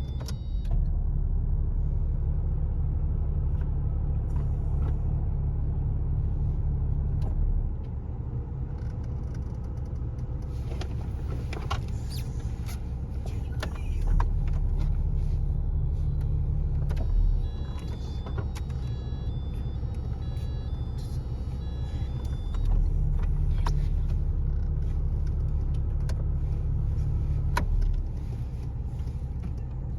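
Volkswagen T4 van engine idling, its rumble rising for several seconds three times as the air conditioning is switched on and off, with sharp clicks between. Switching on the air conditioning makes a warning light come on, which is the fault.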